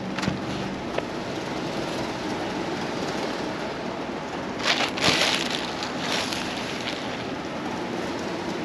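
Clothes being handled and sorted, with a brief rustle of fabric about five seconds in and a couple of small clicks, over a steady rushing noise like wind on the microphone.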